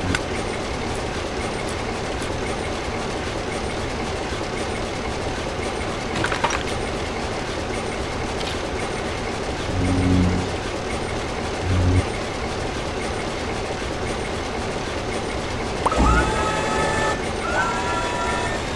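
Steady vehicle running noise, with two short low horn-like blasts about ten and twelve seconds in, and a thump followed by rising whistling tones near the end.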